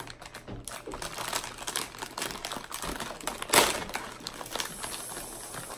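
Crinkling and clicking of plastic and cardboard cookie packaging as a box of Golden Oreos is worked open, with one sharp snap about three and a half seconds in.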